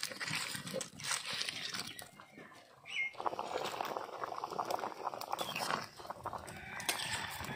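A steel lid is lifted off a wok of fish curry with a brief clink about three seconds in, followed by the curry bubbling and a steel ladle stirring it, a dense crackling for about three seconds.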